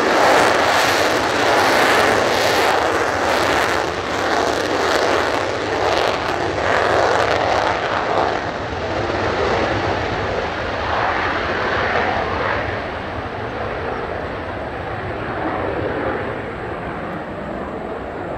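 Mitsubishi F-2 fighter's F110 turbofan in full afterburner through the takeoff roll and lift-off: a loud, rough jet rush with an uneven throbbing crackle. It fades over the last few seconds as the jet climbs away.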